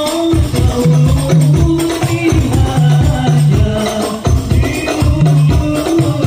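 Hadroh ensemble: hand-struck frame drums (rebana) with deep bass drum strokes in a steady repeating rhythm, and jingling percussion over a group of voices singing together.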